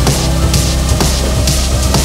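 Electronic dance music with a driving beat of about two hits a second over a heavy, sustained bass line.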